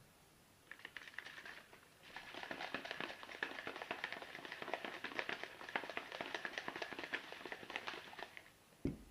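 Plastic protein shaker bottle being shaken: a dense, irregular rattle of clicks lasting about six seconds, after a short burst of crackle about a second in, and ending with a single thump near the end.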